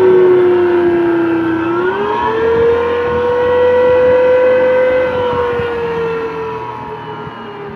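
Forklift hydraulic motor running with a loud whine. The pitch dips slightly, rises at about two seconds, holds, then slowly sinks. This is the abnormal noise the uploader traces to the hydraulic motor, which could come from internal wear, bearing damage, contaminated oil or low hydraulic pressure.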